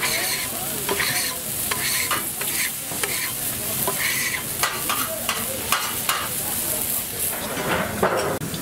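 Beef burger patty sizzling steadily on a hot flat-top griddle, with scattered scrapes and clicks of a metal spatula on the steel plate. About eight seconds in, a steel dome lid clatters down over the patty.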